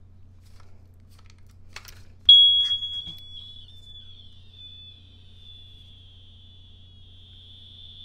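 A BRK Electronics smoke alarm, broken open while trying to get its battery out, lets out a sudden high-pitched tone about two seconds in. The tone is loudest at the start, then settles into a weaker steady whine, a slight moan, that keeps going.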